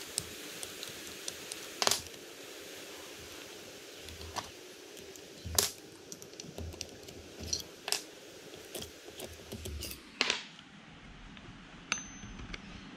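Small metal hand tools clicking and clinking against a model engine and the workbench, as an Allen key works the clamp screws and tools are picked up and set down. Irregular sharp clicks, a few louder knocks among them, over a steady hiss that stops about ten seconds in.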